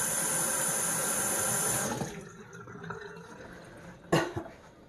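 Kitchen faucet running as a head of cabbage is rinsed under it, the water shutting off about two seconds in. A single sharp knock follows about four seconds in.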